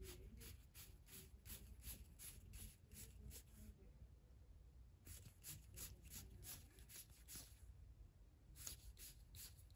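Faint soft flicks of Pokémon trading cards being thumbed one over another through a fanned stack in the hand, about three or four a second. The flicking pauses for about a second near the middle, then resumes.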